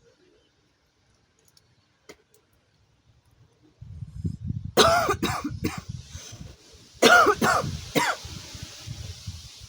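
A woman's smoker's cough: two fits of about three coughs each, the first about five seconds in and the second about two seconds later, over a low rumble that starts just before them.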